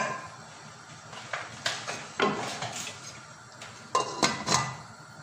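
Aluminium pot lid being set onto a large aluminium stockpot: a few light metallic knocks and clinks against the rim, the loudest cluster about four seconds in.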